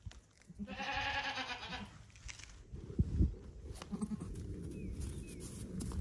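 A young goat kid bleats once, a single call lasting about a second, followed by a couple of dull thumps about three seconds in.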